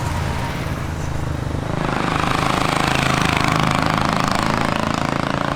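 Royal Enfield single-cylinder motorcycle engine running steadily, growing a little louder about two seconds in.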